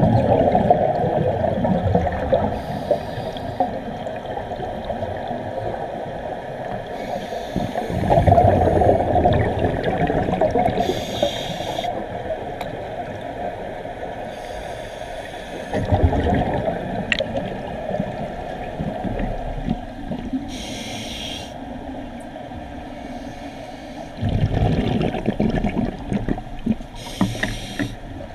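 Scuba regulator breathing heard underwater: a short hiss as air is drawn through the regulator, then a burst of exhaled bubbles, several slow breaths in a row.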